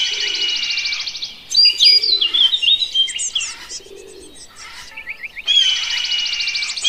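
Small birds singing: a fast buzzy trill, then a run of varied chirps and whistles, then the fast trill again near the end, with soft low cooing underneath.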